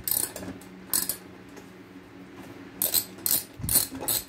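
Short metallic clicks and clinks of a hand tool working a wheel nut loose on an RC car's axle. There are a couple of single clicks, then a quick run of four near the end.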